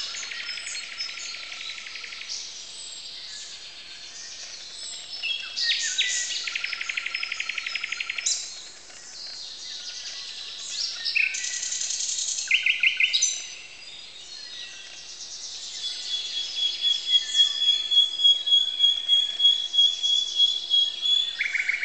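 Dawn chorus of many songbirds, led by a common nightingale: varied phrases of fast rattling trills and whistles, then from about two-thirds in a long high note that pulses in loudness.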